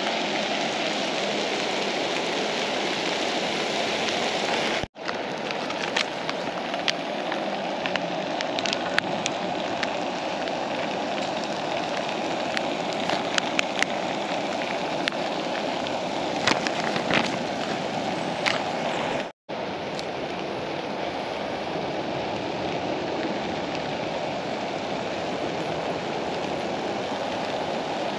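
Chicken thighs and onions frying in a camping pot, a steady sizzle with scattered crackles and pops. The sound breaks off twice for an instant, about five seconds in and again near nineteen seconds.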